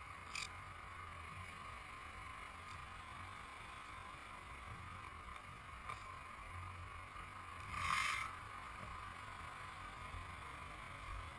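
Faint, steady hum of a stopped motorcycle and the traffic around it, heard through the rider's camera. There are a few small clicks, and a short rustle about eight seconds in.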